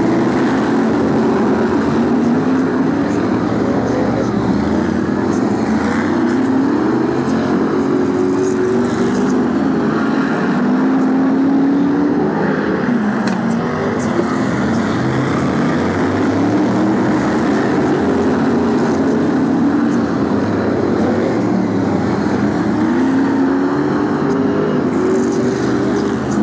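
Several BriSCA F1 stock cars' V8 engines racing together, their pitch rising and falling over and over as the drivers accelerate and lift for the corners.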